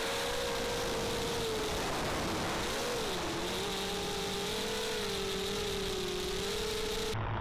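Racing quadcopter's small brushless motors and propellers whining as heard from the onboard camera, the pitch wavering up and down with throttle over a steady rush of wind. Just before the end the sound changes abruptly to a duller, low steady hum.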